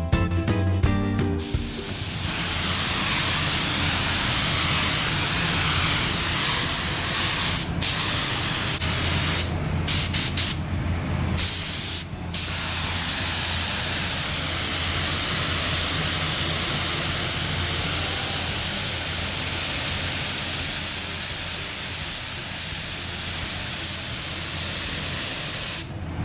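Compressed-air paint spray gun hissing steadily as primer is sprayed onto a sanded plastic car bumper. The trigger is released briefly a few times about a third of the way in.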